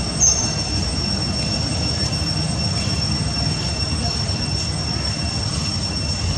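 Steady high-pitched drone of insects, unbroken throughout, over a constant low rumble.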